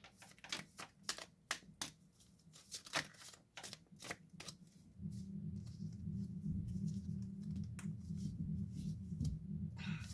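Tarot cards being shuffled and handled: a quick run of sharp clicks and snaps over the first five seconds. About halfway through, a steady low hum sets in underneath.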